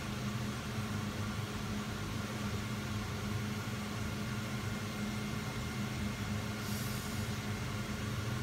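Potatoes frying in a shallow layer of oil: a faint steady sizzle under a steady low hum, with a brief louder sizzle about seven seconds in.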